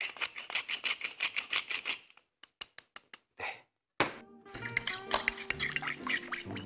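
Wooden pepper mill grinding pepper, a fast run of crunching clicks for about two seconds, then a few separate clicks. About four seconds in, a metal spoon stirs and clinks against a ceramic bowl of oil-and-vinegar dressing.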